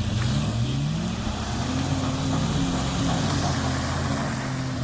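A motor vehicle's engine revving up over the first second or so, then running at steady revs.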